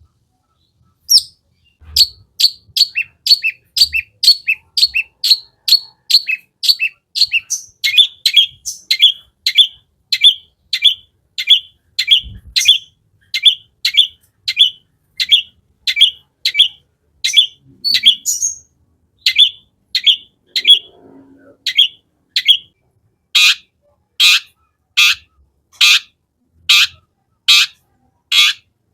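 Long-tailed shrike (cendet) calling a long, even run of short chirping notes, about two a second. The notes become fuller and louder for the last few seconds.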